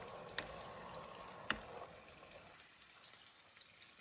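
Faint sizzling of hot oil in a frying pan, with two light clinks of a utensil, about half a second and a second and a half in. The sizzle dies away after about two seconds.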